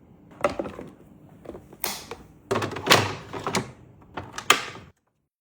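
A run of irregular knocks, thunks and sharp clicks from things being handled and set down. It cuts off abruptly just before the end.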